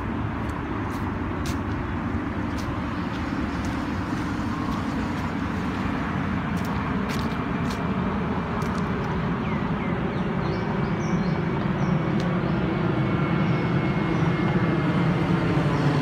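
Steady road-traffic rumble, growing gradually louder, with a few faint bird chirps around the middle.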